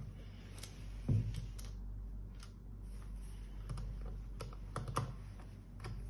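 Irregular light clicks and taps of a small screwdriver and fingers working on the plastic handle of an industrial videoscope, with a heavier knock about a second in and a quick run of clicks near the end, over a low steady hum.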